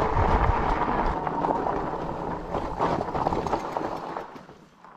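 Fat tires of an electric bike rolling over a rough gravel trail, with knocks and rattles from the bike as it bumps over stones. The noise dies away near the end.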